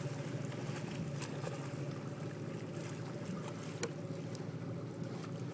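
Motorboat engine idling, a steady low hum, with a couple of faint sharp clicks.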